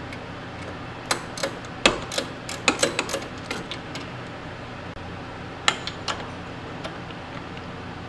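Metal clinks and knocks of hand work on a car's underside, loosening sway bar hardware: a flurry of sharp clicks about a second in, then a few more near six seconds, over a steady low hum.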